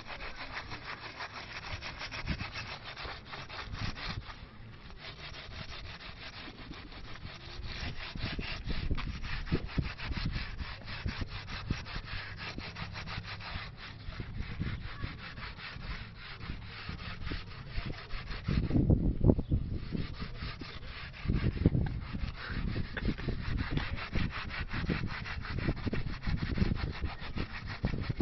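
A hand rubbing and scrubbing a rusty steel bar wet with Coca-Cola, working the loosened rust off: a continuous scraping rub made of quick strokes. From about two-thirds of the way in come louder, low rumbling bursts.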